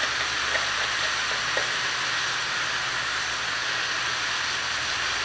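Wild mushrooms (callampas) sizzling steadily in a frying pan as they cook down and give off their juices, with a few faint light ticks in the first second or so.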